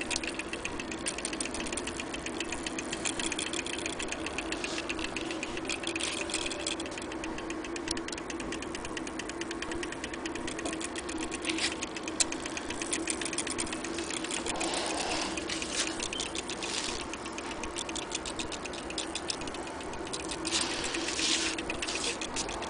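Vintage Westminster mantel clock movement running, its gear train giving a fast, even clatter of rapid clicks over a steady hum.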